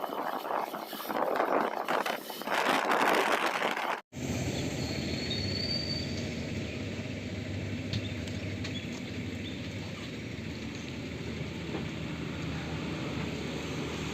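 Wind buffeting the microphone over travel noise for about four seconds, then an abrupt cut to a steady low drone of a moving vehicle's engine and road noise.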